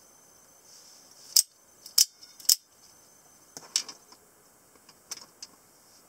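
Sharp metal clicks from automatic knives being handled: three single clicks about half a second apart, then a quick cluster of clicks, and two lighter clicks near the end.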